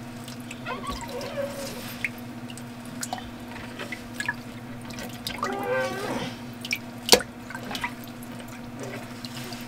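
Water dripping and splashing in an aquarium as the gravel bed is worked by hand, with occasional sharp clicks, over a steady low hum.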